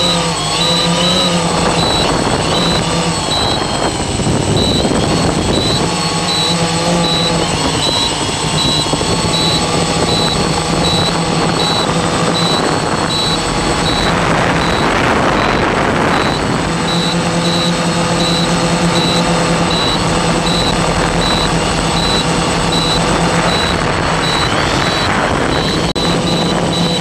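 Octocopter's electric motors and propellers whirring steadily in flight, the pitch of the drone hum drifting up and down as the motor speeds change while it manoeuvres.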